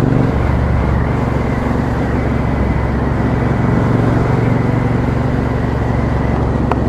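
2017 Triumph Bonneville T120's 1200 cc parallel-twin engine running at a steady cruise through an aftermarket Customer slip-on exhaust with a straight-cut black tip. There is a short click near the end.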